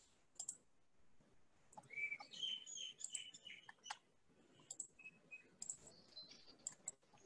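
Faint computer mouse clicks and taps, scattered and irregular, with a few faint high chirps about two to three seconds in.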